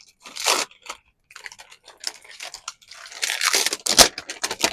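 Plastic packaging crinkling and crackling as it is pulled off a miniature toy refrigerator: a short burst, a pause, then denser crackling with a sharp click near the end.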